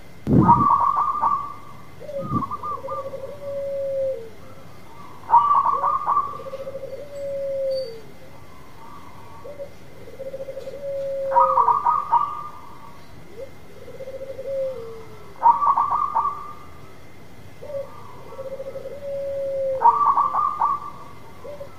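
Zebra dove (perkutut) cooing its repeated song: clusters of quick stuttering notes alternate with a longer held coo that drops at its end, each phrase coming every few seconds. A low thump sounds just after the start.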